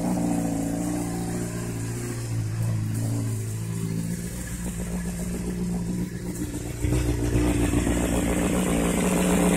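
Motorcycle engine running at a low, steady speed, getting louder about seven seconds in.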